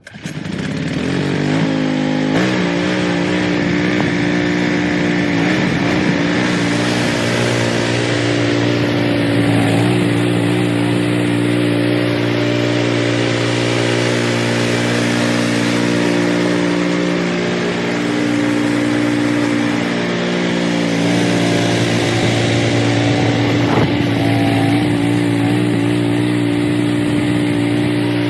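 Cub Cadet 3X 30HD two-stage snowblower's gas engine running steadily while clearing snow. The pitch rises over the first couple of seconds, then holds with small shifts.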